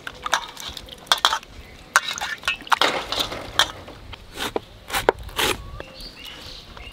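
Pieces of raw green jackfruit being pushed under and turned in a steel basin of water: irregular splashing and sloshing, with sharp knocks against the metal basin. The jackfruit is being soaked to wash off its sticky latex.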